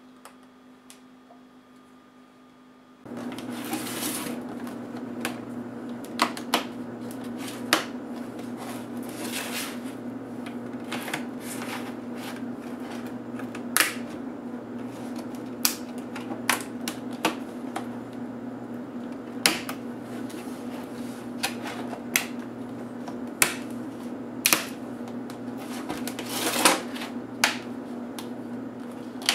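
Plastic screen bezel of a Dell XPS L501X laptop being pried off the display lid by hand: irregular sharp clicks and snaps as its retaining clips pop loose. They start about three seconds in, after faint room tone, over a steady low hum.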